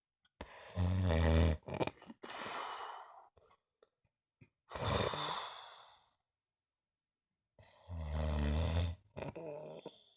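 Heavy snoring of someone asleep: two deep, low snores, about a second in and again about eight seconds in, with breathy exhales between them.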